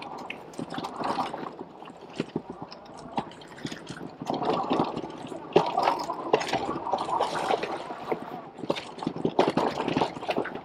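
Fat-tyre full-suspension e-bike ridden hard over rough trail: knobby tyres crunching over dirt, with an irregular run of clicks, knocks and rattles from the bike. The rattling is busiest through the middle.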